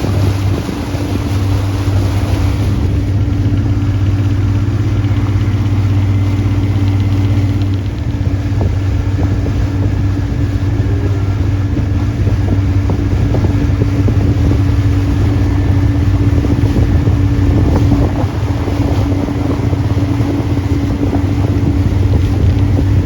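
Motorboat engine running steadily under way, a constant low drone with a hiss of wind and water.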